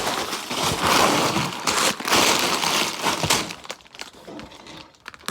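Plastic wrapping crinkling and tearing as it is pulled open by hand, loud for about the first three and a half seconds, then dropping to a few light crackles.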